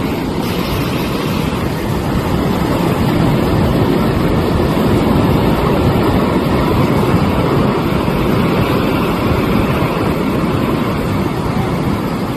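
Fast-flowing floodwater rushing, a loud, steady noise without pauses.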